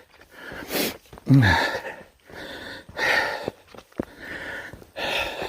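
A man breathing hard: several loud breaths about a second apart, one of them voiced like a falling sigh.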